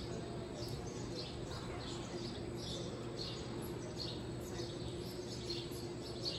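Small birds chirping, short high chirps repeating several times a second, over a steady hum.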